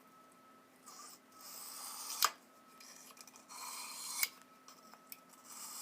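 Utility knife blade drawn across a sharpening stone in long scraping strokes. Two full strokes, each ending in a sharp click as the edge comes off the stone, then a third stroke begins near the end.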